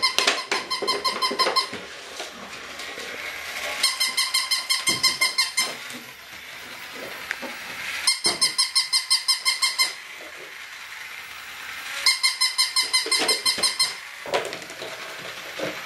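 Battery-powered toy dog playing its electronic sound: rapid squeaky pulses, about seven a second, in two-second bursts that repeat about every four seconds.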